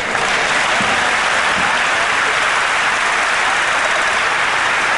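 Audience applauding: dense, steady clapping that sets in right after the speaker's words and keeps going.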